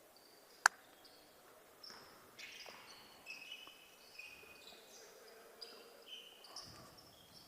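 Basketball shoes squeaking on a hardwood gym floor during live play: many short, high squeals, some overlapping, over faint gym noise. One sharp knock less than a second in stands out as the loudest sound.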